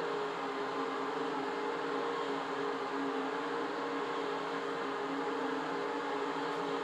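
Motors of several Hunter Douglas Silhouette shades humming steadily as they raise the shades together.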